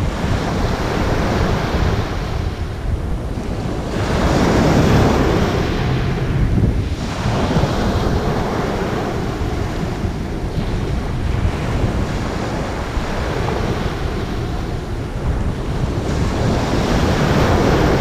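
Small sea waves breaking and washing up a pebble and shingle shore in a continuous surf, swelling every few seconds as a wave comes in, with wind buffeting the microphone.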